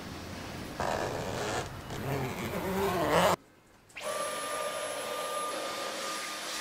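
A handheld vacuum cleaner with a brush nozzle runs over a window seat. Its sound wavers at first, cuts out suddenly about halfway through, and then comes back as a steady high whine.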